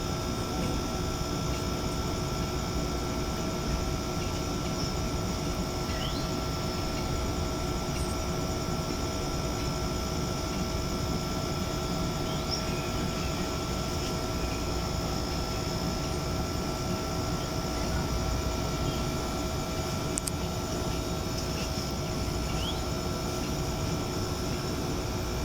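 Steady low rumble with a constant mechanical hum, unchanging throughout, with a few faint short chirps.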